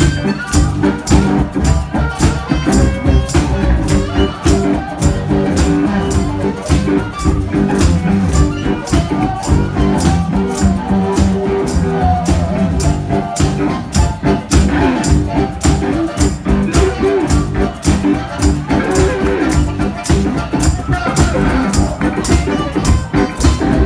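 A live blues-rock duo playing loudly, with a steady, fast percussive beat running under the band.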